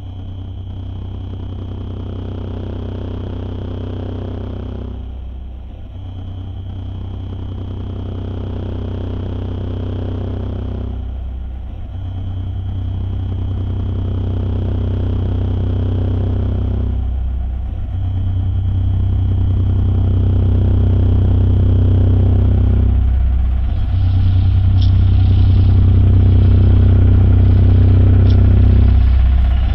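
Deep, steady electronic drone soundtrack in swelling phrases about six seconds long, with a short dip between each. It grows louder toward the end, where a few faint high ticks come in.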